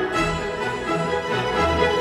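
Instrumental background music with sustained notes over a bass line.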